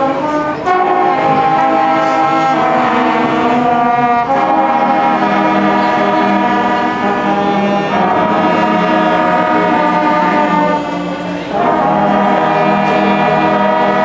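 Marching band's brass section playing long sustained chords, moving to a new chord every few seconds.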